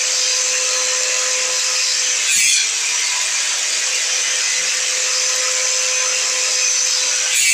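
Angle grinder on a homemade automatic pipe-cutting rig running steadily at speed, a high-pitched whine with a constant hum underneath. It briefly gets louder and harsher twice, about two and a half seconds in and again at the end.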